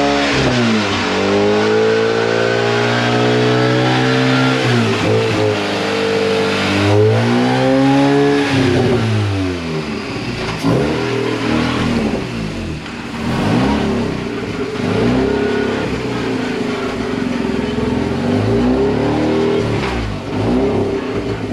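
Mazda RX8's twin-rotor Renesis rotary engine revving, its pitch rising and falling again and again: long sweeps up and down at first, then shorter, quicker rises and falls after about ten seconds.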